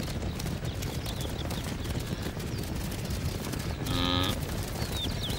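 Wildebeest herd galloping, a steady low rumble of many hooves, with one short, moo-like grunt from a wildebeest about four seconds in.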